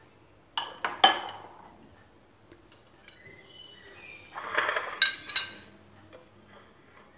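Small fluted metal tart tins and kitchen utensils clinking on a granite countertop. There are a few sharp, ringing clinks about half a second to a second in, then a rattling cluster of clinks near the middle-to-end as a tin is picked up and set down.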